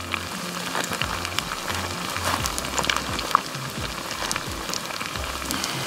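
Breaded fish fillets frying in shallow hot oil in a skillet over a campfire: a steady sizzle with scattered sharp pops and crackles. Background music plays underneath.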